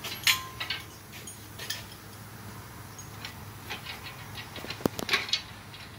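Scattered light metallic clinks and knocks from hands-on work around an engine hanging on a hoist chain, with a sharp click about five seconds in.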